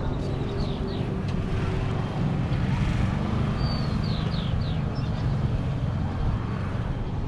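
Steady low rumble of outdoor noise, with a few short, high, falling chirps about four seconds in.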